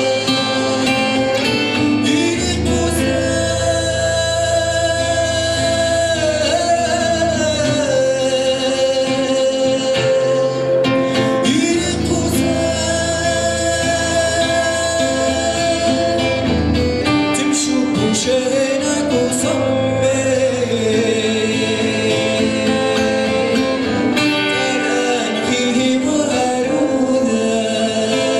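A man singing solo with his own acoustic guitar accompaniment, the guitar strummed under a melody of long held notes that waver in pitch.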